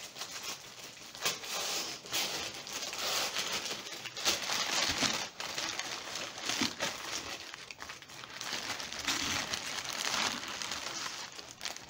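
Printed paper sandwich wrapper crinkling and rustling as it is pulled open by hand to unwrap a sub sandwich, a continuous run of dense crackles.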